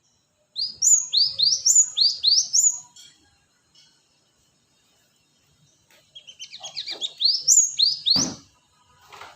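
Cinereous tit (gelatik batu) singing: two bursts of quick, repeated high whistled notes, each swooping up and then down, with a dull thump near the end.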